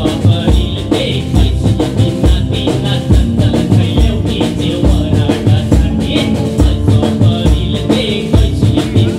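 Live band music for an East Indian folk song, without voice: a steady drum beat with a shaker-like rattle over held instrumental notes.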